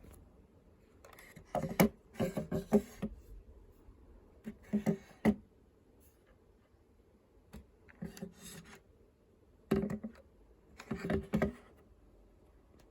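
Handling noise: bursts of clicks and knocks as a small object is picked up and moved about, in five short clusters with pauses between.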